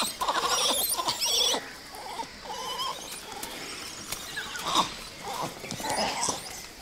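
Gray langurs calling: a burst of wavering, high-pitched calls and chatter for about the first second and a half, then a few scattered shorter calls. The troop is reacting in alarm to an infant that seems injured.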